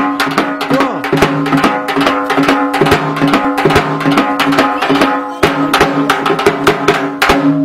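Hand-held flat metal gong beaten rapidly with a stick, about four or five even strikes a second, its ringing tone sustained between the blows; the strikes stop near the end. A village crier's gong, beaten to call people to attention for a public announcement.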